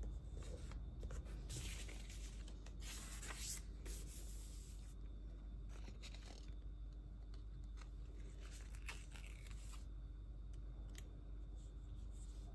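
Quiet paper handling: a planner page turning and stickers being peeled off their backing sheet with metal tweezers. It comes as short rustles and small clicks, busiest a couple of seconds in, over a low steady hum.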